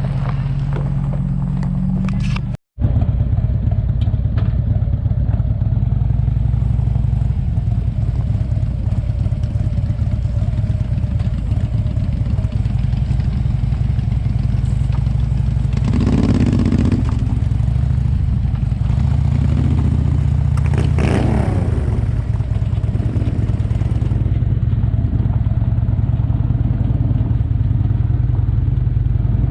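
Motorcycle engine running steadily while riding, with a brief gap in the sound about three seconds in.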